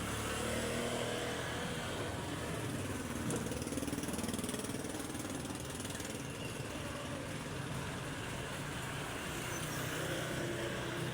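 Automatic washing machine running with a steady low motor hum, as when the rewired machine is switched on to test it.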